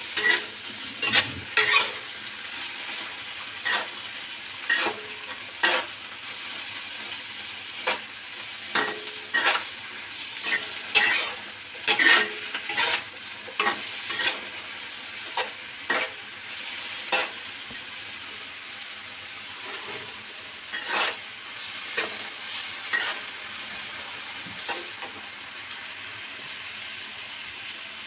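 Eggplant pieces sizzling as they fry in a stainless steel wok, with a metal spatula scraping and clanking against the pan as they are stirred. The strikes come thick and irregular at first, thin out about two-thirds of the way through and stop a few seconds before the end, while the sizzle goes on.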